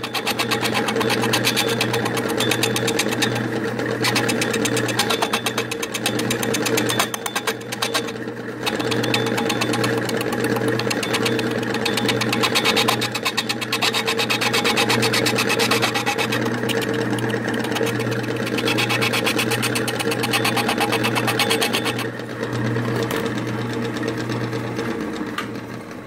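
Drill press converted to a vertical wood lathe, its motor running with a steady hum while a hand-held tool scrapes the spinning wooden blank; the rough cutting noise swells and eases, dropping off briefly a few times.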